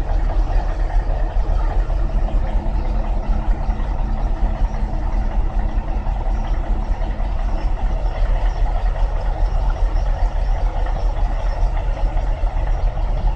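Heavy diesel engine running steadily, with a steady hum joining in from about two seconds in until about eight seconds.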